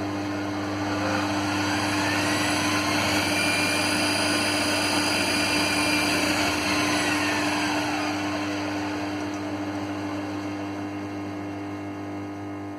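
Electric motor of a homemade metal lathe running with a steady hum. Its whine rises about a second in, holds, then falls away again, as the drive speeds up and slows down.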